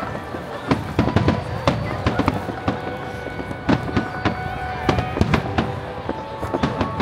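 Aerial firework shells bursting in quick succession, many sharp bangs, at times several a second.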